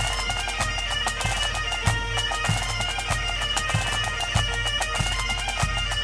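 Bagpipe music with a steady drone and a regular drum beat, laid over the picture.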